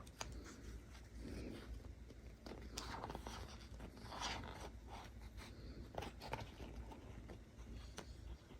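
Faint rustling and light scattered taps of a children's picture book being handled.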